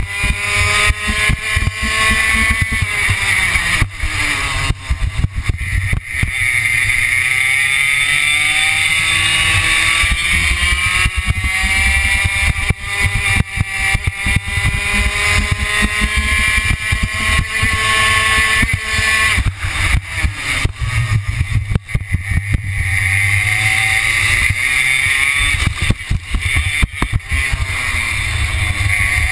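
Two-stroke racing kart engine heard onboard at full racing pace, its revs climbing in long rising whines along the straights and dropping sharply for the corners, several times over.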